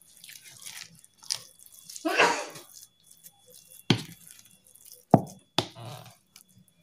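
Wet squelching of minced chicken nugget mixture being mixed by hand and then with a spatula in a plastic bowl, with three sharp knocks of the spatula against the bowl in the second half.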